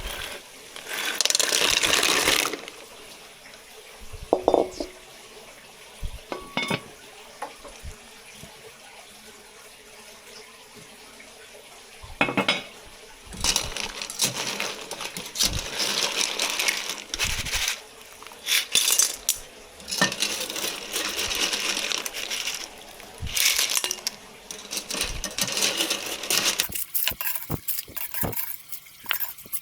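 Kitchen work sounds: sharp clinks of hard items against dishes, with repeated short bursts of running or splashing water through the second half.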